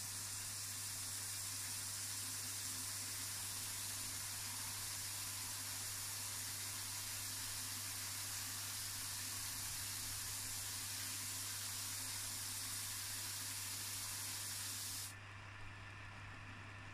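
Belt sander with a coarse 36-grit cloth belt grinding a flat metal part held against it: a steady high grinding hiss over the motor's constant low hum. The hiss cuts off suddenly about two seconds before the end as the part is lifted off the belt, leaving only the hum.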